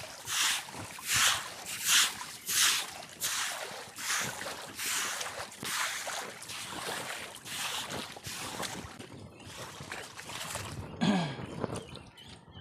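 A broom scrubbing the floor of a shallow concrete pool under water: rhythmic swishing and splashing strokes, about one and a half a second, growing weaker and stopping after about nine seconds. Near the end, a short sound falling in pitch.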